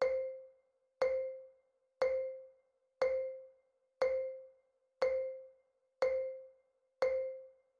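Quiz countdown timer sound effect: a short, single-pitched ping struck once a second, eight times, each dying away within about half a second.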